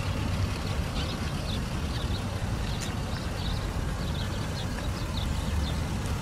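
A steady low rumble of outdoor ambience, with small birds chirping over and over in short high notes.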